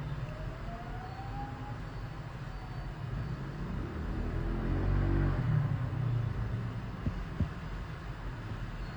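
Low rumble of passing road traffic that swells as a vehicle goes by about halfway through. There are two light clicks a few seconds later.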